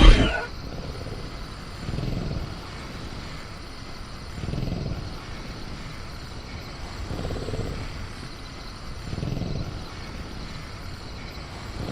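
Sound-effect velociraptor in a cage breathing or growling low, in slow swells about every two and a half seconds, over a faint steady chirr of crickets. A loud burst, typical of the raptor rattling its cage, dies away at the very start.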